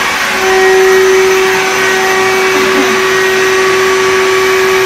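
Electric air pump running steadily to inflate an air mattress: a loud, even motor hum over a rush of air.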